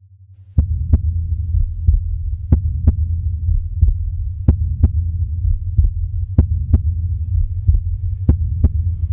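Heartbeat sound effect over a low steady hum: slow double thumps repeat about every two seconds, with a softer single beat between each pair.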